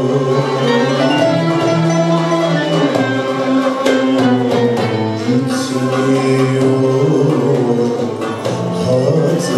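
A male solo singer sings a Turkish classical art song in makam Kürdilihicazkâr, holding long sung notes. A Turkish art music ensemble with violins accompanies him.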